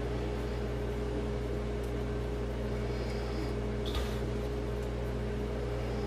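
A steady hum, several even tones held level throughout, with a single light click about four seconds in.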